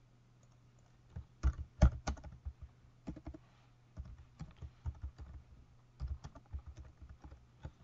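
Typing on a computer keyboard: irregular keystroke clicks that start about a second in, a few louder strokes among them, over a faint steady low hum.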